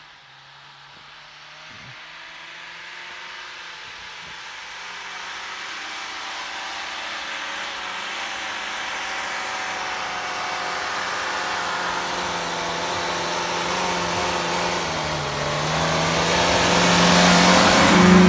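Daihatsu Feroza's 1.6-litre four-cylinder petrol engine pulling under load through deep snow with the handbrake left on. It grows steadily louder as the 4x4 approaches and is loudest as it passes close by near the end. The engine note dips briefly a few seconds before the end, then rises again.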